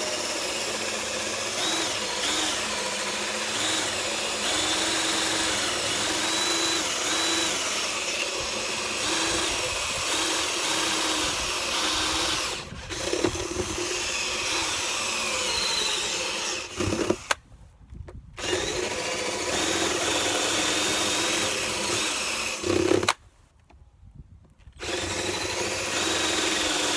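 Electric drill boring holes into the edge of a wooden door to cut a lock mortise, running steadily under load with its pitch shifting slightly as the bit cuts, and stopping briefly a few times between holes.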